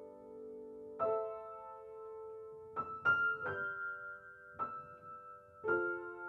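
Slow, soft piano music: chords and single notes struck about once a second, each left to ring and fade.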